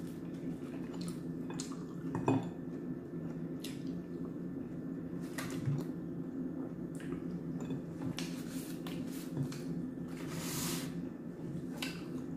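Fingers picking at fried chicken and mushrooms on a ceramic plate, with scattered light clicks of contact on the plate, the sharpest about two seconds in, over a steady low hum.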